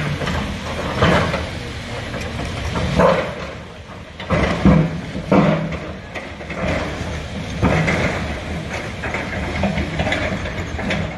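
Heavy diesel construction machinery running, with irregular clanks and knocks about once a second.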